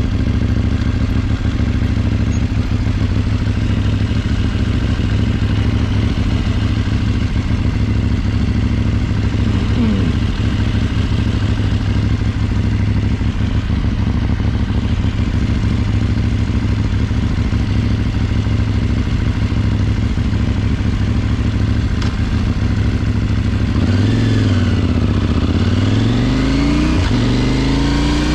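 KTM 790 motorcycle's parallel-twin engine running at a steady speed. In the last few seconds the revs drop and rise again a few times, then climb as the bike accelerates.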